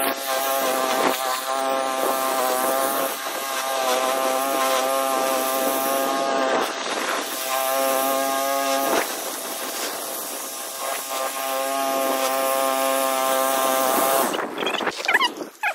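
Small gas engine of a walk-behind mower running steadily while cutting grass, its pitch wavering a little. It cuts off near the end.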